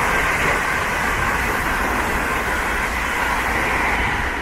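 Two coupled London Northwestern Railway Class 350 electric multiple units passing through at speed: a loud, steady noise of wheels on rail with a faint even whine.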